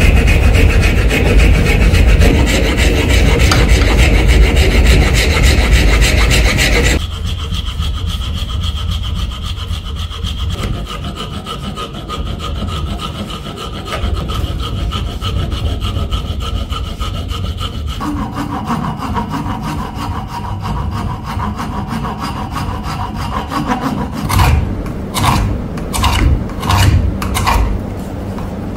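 Tools working wood, likely on the new wooden hammer handle. A loud, rough rubbing runs for about seven seconds, then gives way to a quieter, steady running sound with a faint hum. Near the end come five or six strokes, a little over half a second apart.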